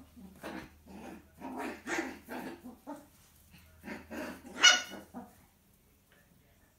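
Poodle mother and her six-week-old miniature poodle puppy growling and barking in a scuffle as she disciplines him, in a string of short bursts with one sharp, high yelp about four and a half seconds in. The sounds stop a little after five seconds.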